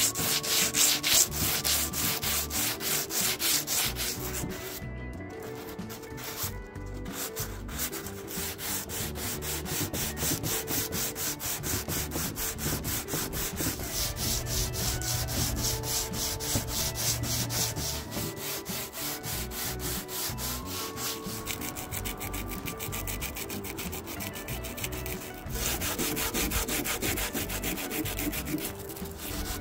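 Sandpaper rubbed by hand over the wooden top of an old radio cabinet in quick, steady back-and-forth strokes, taking off the worn finish. There are short pauses about five and seven seconds in.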